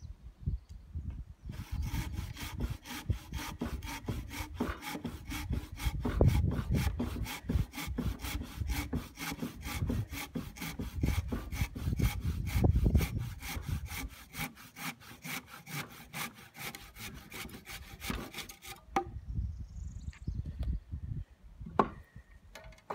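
Handsaw cutting through a thick pressure-treated timber by hand: fast, even back-and-forth strokes that stop about 19 seconds in, followed by a few separate knocks.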